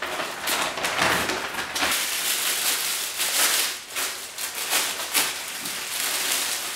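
Wrapping paper tearing and rustling as it is pulled off a panettone, then a clear cellophane bag crinkling as the wrapped cake is handled: a dense, continuous crackle.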